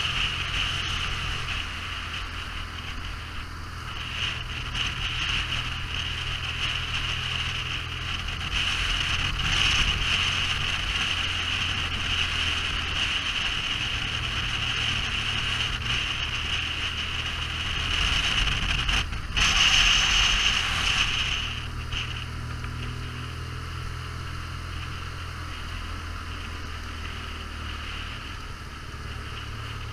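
Motorcycle engine running steadily while riding, with a constant rush of wind and road noise that swells briefly about ten and twenty seconds in.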